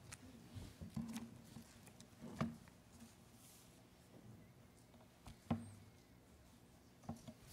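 Quiet room tone broken by a few faint clicks and rustles from hands moving on a pulpit and the open book on it, about a second in, twice more a few seconds apart, and again near the end.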